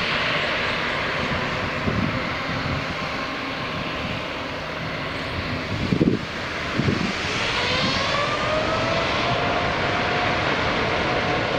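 Airliner engines running with a steady rushing roar, then spooling up about seven seconds in: a whine rises in pitch and levels off as the aircraft goes to takeoff power. A couple of brief low thuds come just before the spool-up.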